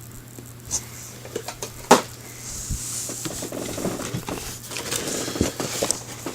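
Cardboard model-kit boxes and their contents being handled: scattered light clicks, one sharp knock about two seconds in, then a stretch of rustling and scraping.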